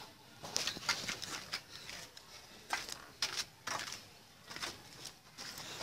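Footsteps on a gritty concrete roof: irregular soft clicks and scuffs a few times a second.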